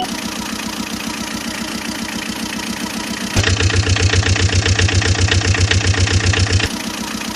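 An engine idling with a steady rapid chug. A little past three seconds in it switches abruptly to a louder, heavier chugging for about three seconds, then drops back to the quieter idle.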